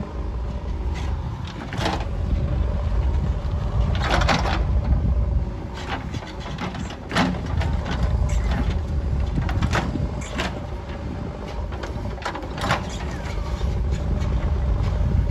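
JCB 3DX backhoe loader's diesel engine running steadily under work, with several sharp knocks scattered through it, the loudest about four seconds in.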